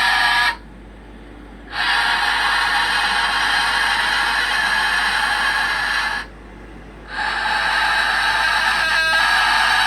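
A pet's long, harsh, breathy cries, each held for several seconds: one of about five seconds, a pause of about a second, then another long one.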